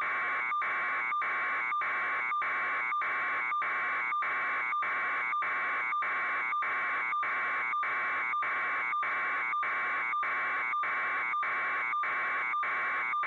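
Electronic alarm buzzer, the kind used in building fire alarms, sounding in rapid, even pulses of about three a second at a steady pitch.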